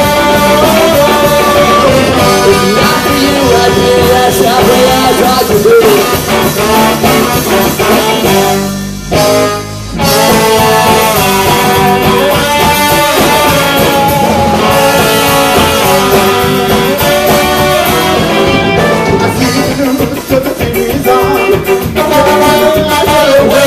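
Live ska band playing an instrumental passage: trombone and saxophone carry the melody over electric guitar, bass guitar and drum kit. About nine seconds in, the band drops out for about a second, then comes back in full.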